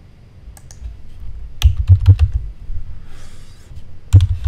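Typing on a computer keyboard: a single keystroke about half a second in, a quick run of several keys around the two-second mark, and a few more near the end, as the circle's diameter of 0.43 is keyed into the CAD program.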